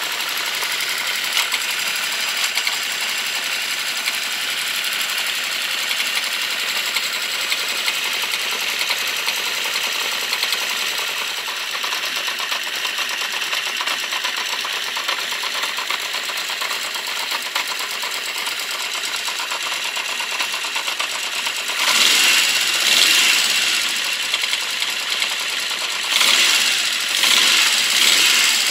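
Honda CB650 Custom's air-cooled inline-four engine idling with a fast, steady ticking running through it; the engine note swells louder twice near the end. The owner takes the ticking for valve noise on cylinders 3 and 4, possibly with something from the clutch or cam chain area.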